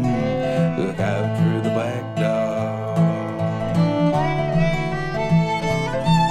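Folk instrumental break: a fiddle plays the melody over a resonator guitar keeping a steady rhythm. The fiddle line slides about in the first seconds, then climbs higher note by note in the second half.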